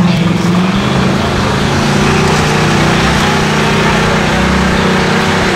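Jeep Wrangler engine running at steady, fairly high revs as the Jeep churns through a mud pit.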